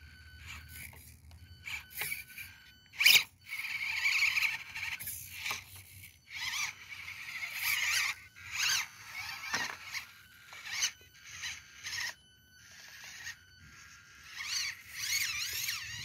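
Axial SCX24 micro rock crawler's Injora 66-turn brushed motor and drivetrain whining in short, stop-start bursts as it crawls over rock. A sharp knock about three seconds in is the loudest sound.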